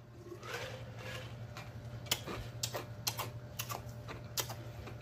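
Close-miked swallowing gulps and wet mouth clicks as a man drinks from a large jug, a run of sharp irregular clicks about two or three a second.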